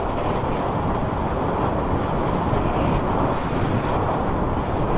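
Steady wind rush on the microphone mixed with the running of a Suzuki Bandit 1200 motorcycle and its road noise, ridden at an easy pace.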